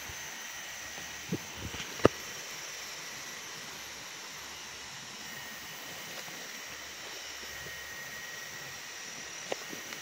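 Forest background of steady hiss with a faint, even high drone, and a few short snaps from walking through undergrowth, the sharpest about two seconds in and another near the end.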